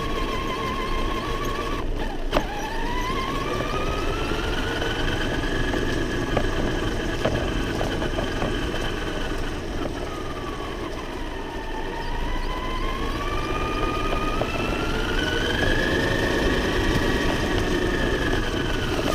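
RC monster truck's motor whining as it drives, its pitch sliding down and up with the throttle over a steady rumble of tyres on the ground. About two seconds in, the sound briefly cuts out and there is a click.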